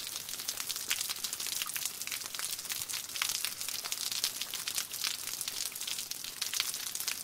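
Rain: a steady, dense patter and crackle of drops hitting a surface.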